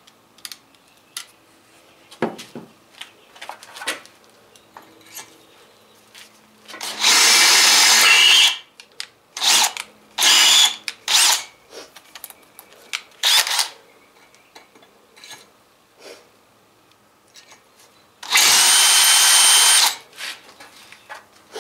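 Cordless drill boring out a broken exhaust-manifold stud in a small-block Chevy cast-iron exhaust manifold with a 7/32-inch bit, run in bursts: one long run about seven seconds in, several short squeezes of the trigger, then another long run near the end as the bit goes through. Light clicks and taps from handling the drill and manifold fall in between.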